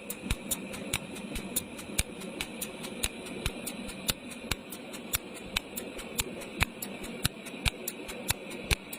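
Cold (pulse) spot welding machine firing in quick succession: sharp, irregular clicks, a few per second, each a weld pulse, over the machine's steady hum.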